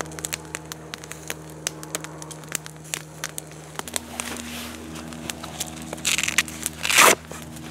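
Wood campfire crackling, with frequent sharp pops and snaps. Near the end comes a brief, louder rustling noise.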